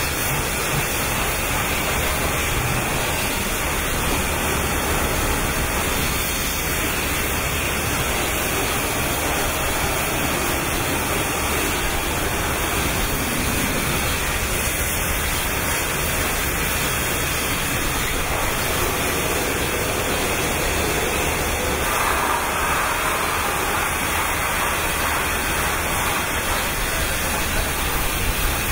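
Steady rushing noise with a low hum underneath and no distinct events; it turns a little brighter for a few seconds about three-quarters of the way through.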